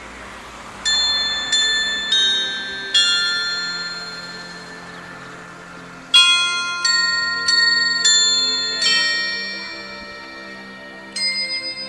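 Small carillon of tuned bells playing a melody, each struck note ringing on and fading under the next. Four notes come in the first three seconds, then after a pause a longer run of notes starts about six seconds in.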